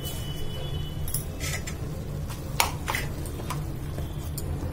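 Steel spoon clinking and scraping against a metal kadai while mashing and stirring roasted brinjal into the seasoning. Several sharp clinks sound over a steady low hum.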